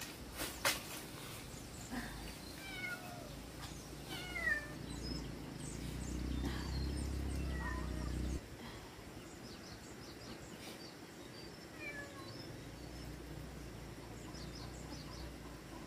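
A cat meowing several times in short, downward-sliding calls. Before them comes a brief crinkle of a plastic bag being handled. A low rumble sets in about six seconds in and cuts off suddenly a couple of seconds later.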